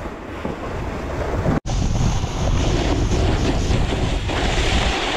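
Wind rushing over the microphone of a snowboarder's action camera together with the snowboard's edges scraping over packed snow, a steady hiss that cuts out for an instant about one and a half seconds in and comes back louder.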